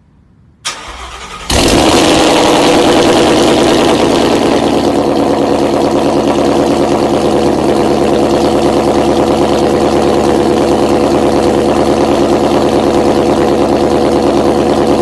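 Twin-turbocharged Ford Mustang GT350 V8 being started: a brief crank from the starter, then the engine catches about a second and a half in and settles into a loud, steady idle through the exhaust.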